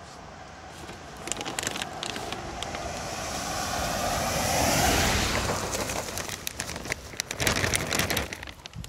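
A vehicle passing on a wet gravel road, its noise swelling to a peak about halfway through and then fading. Footsteps crunch on the gravel throughout, loudest near the end.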